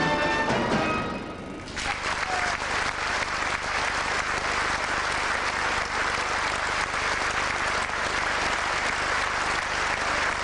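The last chord of a brass band dies away, and after a brief dip, about two seconds in, an audience breaks into steady applause.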